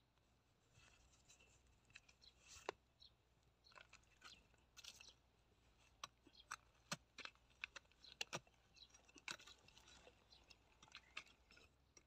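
Small hand hoe chopping and scraping into dry, cracked river-mud crust: faint, scattered sharp crunches and clicks with short scrapes as the clods break.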